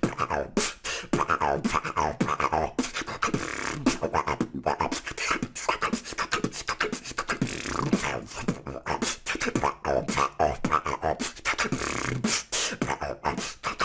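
Human beatboxing: a fast, unbroken run of mouth-made kicks, snares and clicks, woven with the Daemon Frog, a low, frog-like croak made with the tongue pressed to the roof of the mouth and the cheeks puffed.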